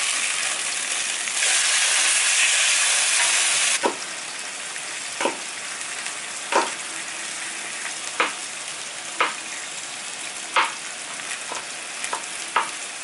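Ground turkey sizzling in a hot nonstick frying pan, louder for the first few seconds. Over the steady sizzle, a knife chops on a cutting board in about eight sharp, irregular strikes about a second apart.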